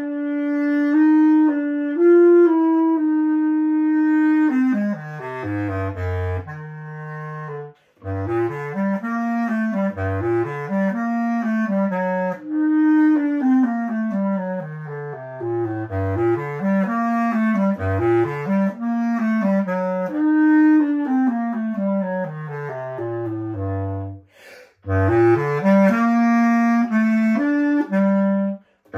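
Solo bass clarinet playing a single melodic line: a long held note at the start, then flowing passages that sweep down into the instrument's low register and back up again and again. The playing breaks off briefly about eight seconds in and again near the end.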